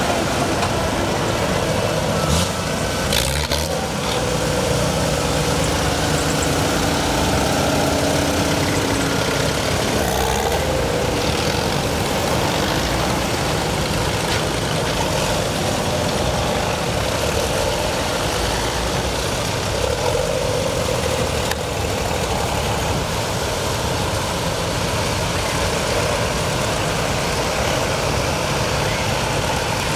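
Engines of a line of vintage farm tractors running steadily as they drive slowly past one after another, with a few short clicks a few seconds in.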